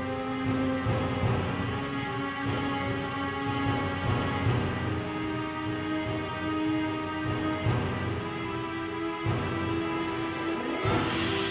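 Steady rain with rumbles of thunder, under slow music of long held notes that shift pitch a few times.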